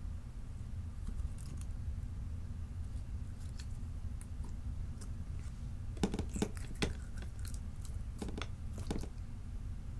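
Clear slime being peeled up and folded by hand, giving soft sticky crackles and pops: a few faint ones, then a cluster a little past halfway and another near the end. A low steady hum lies underneath.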